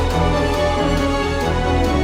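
Background music with sustained pitched notes over a bass line and a steady beat.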